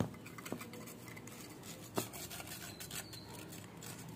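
Steel spoon scraping and rubbing against a metal mesh sieve, sifting powder through it in a run of short rasping strokes. A few sharp clicks stand out, the first at the very start and another about two seconds in.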